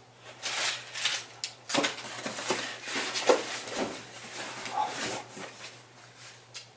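Crumpled packing paper rustling and crackling as hands dig through a cardboard shipping box, with irregular scrapes and clicks of cardboard being handled.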